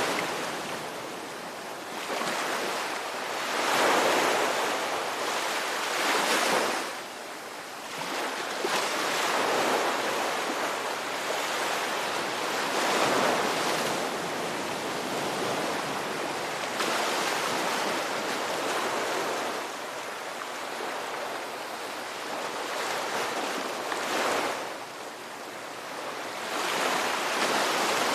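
Ocean waves breaking and washing on a shore, a steady rushing surf that swells and eases every few seconds.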